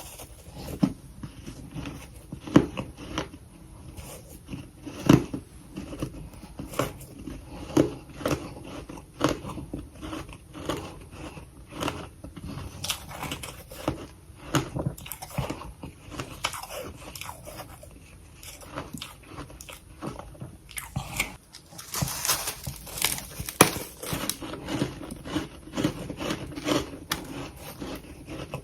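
Close-miked chewing of freezer frost: a steady run of crisp crunches as mouthfuls of powdery ice are bitten and chewed, with a denser, louder burst of crunching about 22 seconds in.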